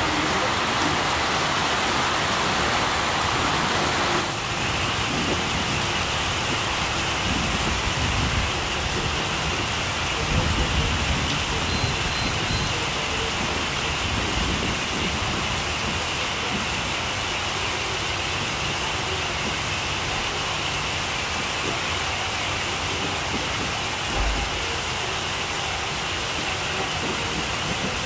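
Heavy tropical downpour: a steady hiss of rain pouring onto a street, roofs and trees.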